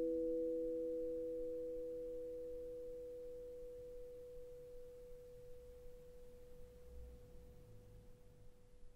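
Steel tongue drum notes ringing out and slowly fading, with no new strike. The lower notes die away about five seconds in, while one higher tone lingers on faintly.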